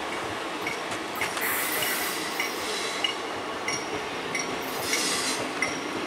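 Indian Railways passenger coaches rolling past on a curve: a steady rumble of wheels on rail, with frequent short high-pitched squeals and clinks from the wheels and clattering over the rail joints.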